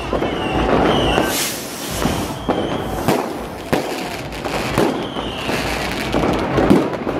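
Street fireworks and firecrackers going off all around: irregular sharp bangs and crackles, with a louder rushing hiss about a second and a half in.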